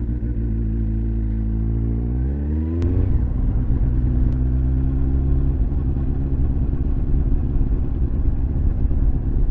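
Motorcycle engine running, revving up for about a second, about two seconds in, then running on steadily.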